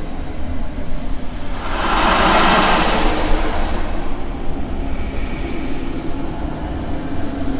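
Horror sound effect: a steady low rumbling drone, with a whoosh of hissing noise that swells up about two seconds in and fades away over the next second or two.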